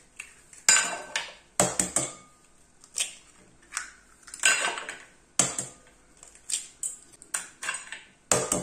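Eggs being cracked one after another on the rim of a glass mixing bowl: sharp taps of shell on glass, roughly one a second, some in quick pairs, with light clinks.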